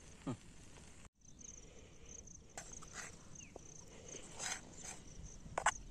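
Insects chirping in a steady high pulse, about two chirps a second. A steel spoon scrapes and clinks against a metal pan a few times as a dry, crumbly mixture is stirred, the loudest scrape near the end.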